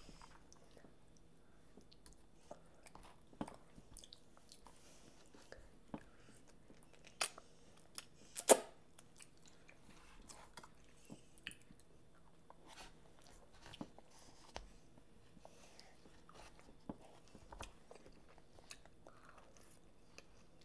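Children eating soft instant noodles: quiet chewing and mouth smacks, broken by scattered short sharp clicks, the loudest about eight and a half seconds in.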